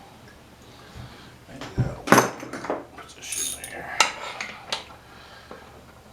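Metal hand tools and engine parts clinking and clanking together as an engine is taken apart: a few sharp clanks, the loudest about two seconds in, with lighter clinks over the next few seconds.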